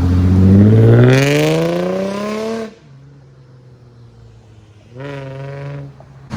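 Infiniti G35's 3.5-litre V6 through a Tomei aftermarket exhaust with freshly replaced flex pipes, accelerating with its pitch rising for about two and a half seconds, then cutting off suddenly to a quiet steady engine note. About five seconds in there is a brief louder stretch of the engine.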